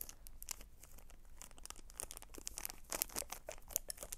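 Small clear plastic bag crinkling and crackling as fingers handle and open it, the crackles thickening and getting louder about halfway through.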